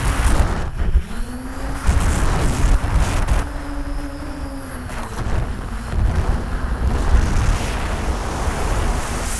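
DJI F550 hexacopter's six brushless motors (Propdrive 28-30S 900KV) spinning 10x5 propellers, heard from an onboard camera with heavy wind buffeting on the microphone. The motor whine rises in pitch about a second in and falls again around four to five seconds in as the motors speed up and slow down.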